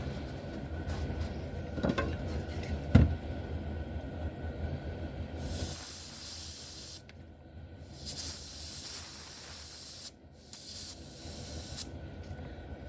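Compressed air hissing in three blasts, the first about halfway through, blowing debris out of the brush barrels of an HO slot car chassis. Before them come a few light taps of small parts being handled.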